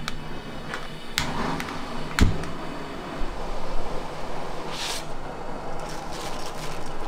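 Restaurant kitchen noise: a couple of sharp knocks over steady background noise, with a brief hiss about five seconds in.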